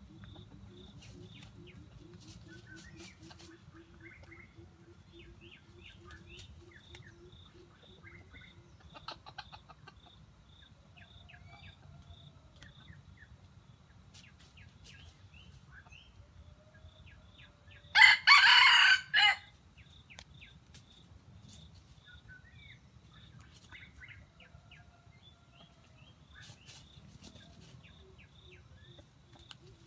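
A rooster crows once, loud and close, a little past halfway. Around it are faint clucks, a quieter call earlier on, and a steady faint ticking.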